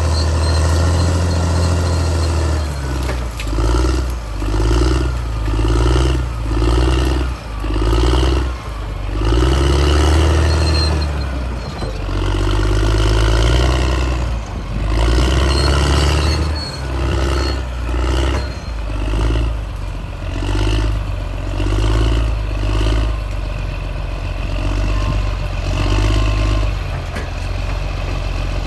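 CAT D6R crawler bulldozer's diesel engine running hard under load, its sound swelling and easing in pulses about once a second, with some clatter from the machine.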